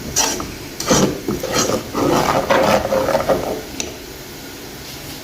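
A spoon stirring and scraping around a pot of thickening cocoa-and-milk sauce, in uneven strokes that stop about three and a half seconds in.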